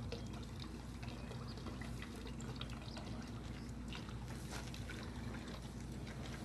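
Chicken broth pouring steadily from a carton into a preheated cast-iron Dutch oven, with faint scattered ticks over it.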